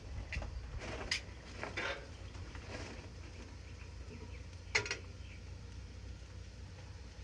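A few sharp clinks of metal utensils against cookware, the loudest about five seconds in, over a steady low rumble.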